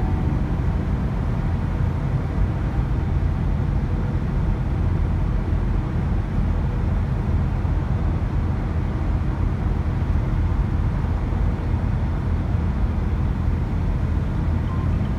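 Steady low road noise heard inside a car's cabin while it drives at highway speed.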